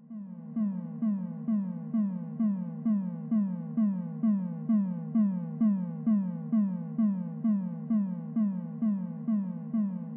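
Electronic synthesizer music with a steady, repeating pulse of about two notes a second, each note sliding down in pitch.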